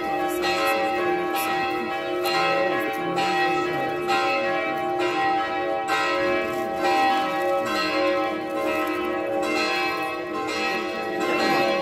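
Church bells pealing, fresh strokes coming about once a second over tones that ring on and overlap. The peal is typical of Orthodox bells rung to welcome an arriving bishop.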